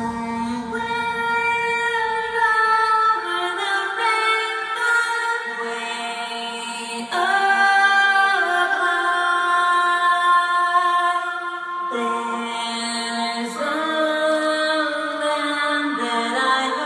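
Music: a slow passage of held, choir-like sung chords that change every second or two, with no beat.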